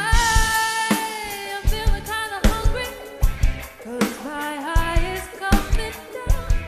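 Live band playing the bridge of a pop-rock song: a drum kit drives it with regular bass-drum and snare hits under melodic lines and singing.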